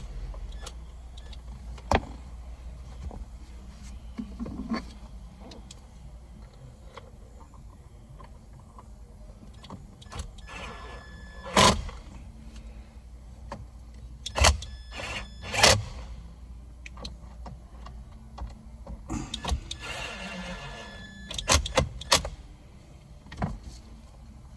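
Scattered clicks, knocks and rattles of hands and tools working on a car's steering column, with several louder knocks and short rattles in the second half.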